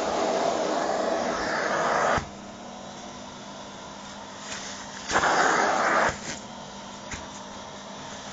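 Vacuum cleaner running over a nylon down jacket, its suction alternating between a loud rushing of air and a lower steady hum as the nozzle is worked over the fabric. The loud rush cuts off abruptly about two seconds in and comes back for about a second near the five-second mark.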